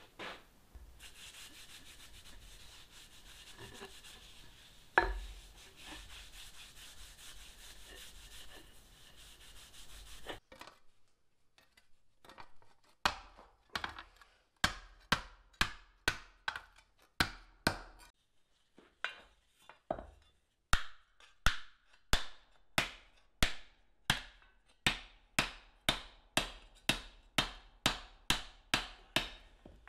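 A cloth and a can are handled with low rubbing noises for about ten seconds, with one knock about five seconds in. Then a dog's-head dishing hammer strikes a thin sheet-metal blank laid over a hollow in a wooden stump, dishing it: steady blows of metal on metal over wood, each with a short ring, about two a second.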